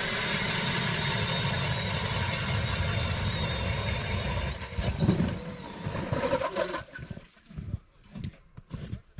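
An engine running steadily, then stopping about four and a half seconds in. Irregular knocks and handling sounds follow.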